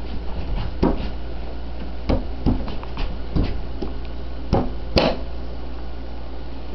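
Metal rear grab bar knocking and clinking against the three-wheeler's steel frame as it is fitted by hand: about half a dozen irregular knocks, the sharpest about five seconds in, over a steady low hum.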